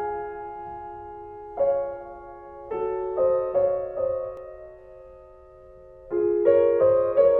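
Background music: slow piano playing, notes and chords struck every second or so and left to ring as they fade.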